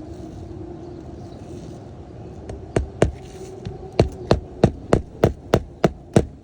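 Hand hammer driving roofing nails into asphalt shingles: a few strikes, a pause, then a steady run of about eight blows at roughly three a second, over a steady background hum.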